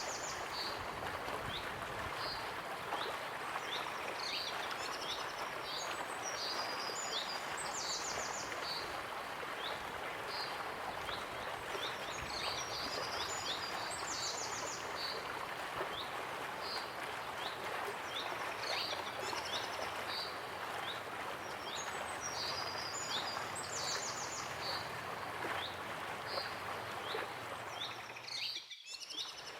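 Waterfall rushing steadily, with small birds chirping and trilling high above it in a phrase that recurs every several seconds. The sound briefly drops away just before the end.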